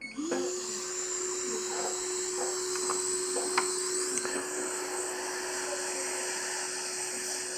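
Hot air rework station switched on to desolder the MacBook's EFI firmware chip: the blower rises briefly in pitch, then holds a steady hum under a hiss of air, with a few light clicks in the middle.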